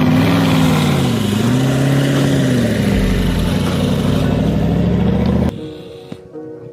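Car-like engine revving sound, its pitch dipping about a second in and climbing back, then cutting off abruptly near the end.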